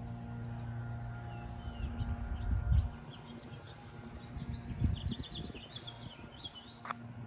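Small birds chirping with a run of quick, high notes, over a steady low hum. Two bouts of low rumbling, around two and a half and five seconds in, are the loudest part, and a single sharp click comes near the end.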